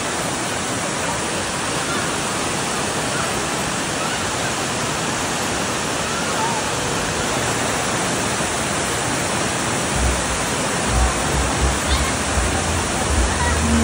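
Tiered waterfall rushing: a steady, dense roar of water cascading over the rock ledges. Low rumbling thumps come in over the last few seconds.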